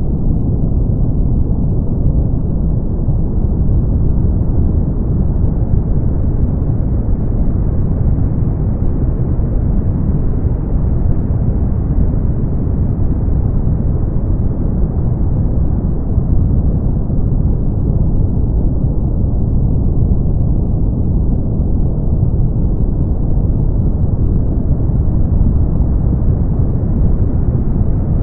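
Brown noise: a steady, deep, even hiss with most of its energy low down and little treble, its top end slowly swelling and easing over many seconds.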